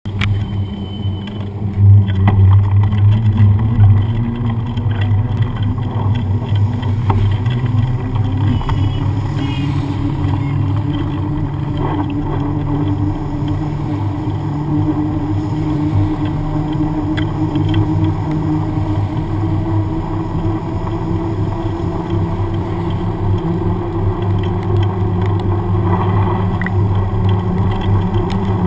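Knobby mountain-bike tyre rolling on a wet road, a steady hum that slowly rises in pitch over a low rumble.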